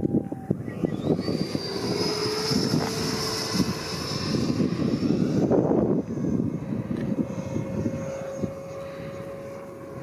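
The 80 mm electric ducted fan of a Freewing F9F-8 Cougar RC jet whines in flight. The high whine rises in pitch about a second in, holds, and fades after about five seconds, and a lower steady tone follows. Heavy gusty wind rumble on the microphone runs under it.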